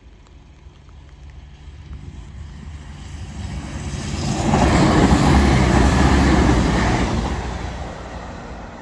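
Class 170 Turbostar diesel multiple unit passing. Its engine and wheel noise builds up, is loudest about five to seven seconds in, then fades as it moves away.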